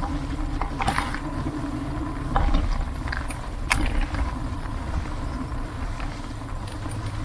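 Recumbent trike rolling over brick paving: a steady low rumble with wind on the microphone, and scattered clicks and rattles from the trike's frame and load, the loudest a few seconds in.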